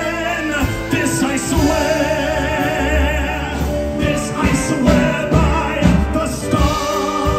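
A male singer sings a held, wavering melody over a band accompaniment with a steady bass line.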